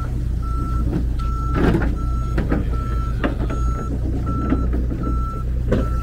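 A vehicle's reversing alarm beeping: one tone repeating evenly a little faster than once a second, over a steady low engine hum, with a few short knocks between the beeps.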